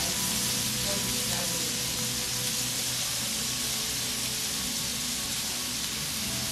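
Pork belly sizzling steadily on a hot griddle, an even frying hiss.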